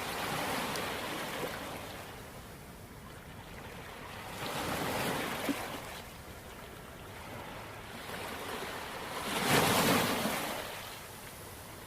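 Soft rushing noise that swells and fades three times, about five seconds apart, loudest the third time near the end.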